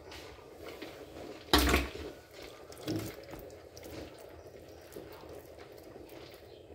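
Kitchen water sounds, with a dull thud about a second and a half in and a softer one about a second later.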